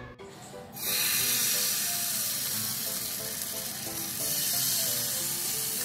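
Potato and wheat-flour paratha batter sizzling in a hot oiled non-stick frying pan. The sizzle starts suddenly about a second in as the batter is ladled in, then holds steady.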